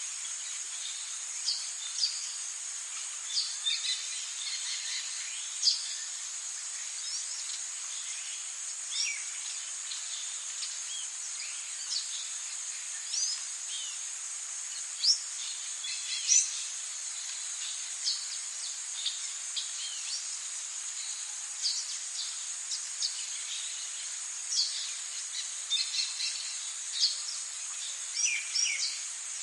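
Forest ambience: a steady, high-pitched insect drone with many short bird chirps and quick whistled calls scattered over it.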